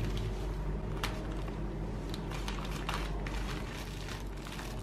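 Plastic poly mailer bag crinkling and rustling in the hands as it is opened, with a few sharp crackles over a steady low hum.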